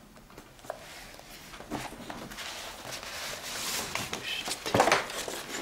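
Paper documents and a folder being handled and rustled on a desk, with a few soft clicks and the loudest rustle near the end.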